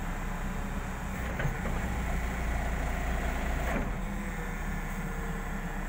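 Hydraulic excavator's diesel engine running, heard from inside the cab. The low drone grows heavier for a couple of seconds in the middle as the hydraulics take load while the stick is worked, then settles back.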